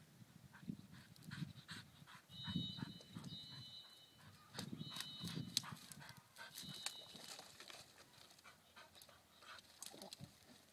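A dog scrambling over a pile of dead branches, twigs and sticks cracking and snapping under her many times. A high, thin whistle-like tone sounds on and off from about two to seven seconds in.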